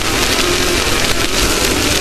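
Off-road race vehicle running at speed: a loud, steady rush of wind and dirt noise over the mic, with the engine note faintly beneath.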